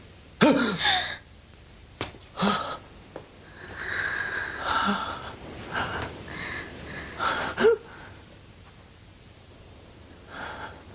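Several short gasps and cries of shock from people reacting to a bloodied body, in separate bursts. The loudest come about half a second in and just before the eighth second.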